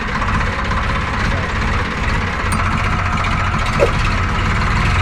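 Eicher 555 tractor's diesel engine running steadily with a low, even pulse.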